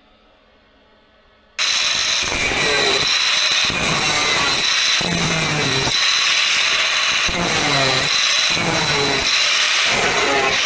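A power tool starts abruptly about one and a half seconds in and runs loudly with a steady high whine. Its lower note dips and recovers every second or so, as if the tool is taking load on metal.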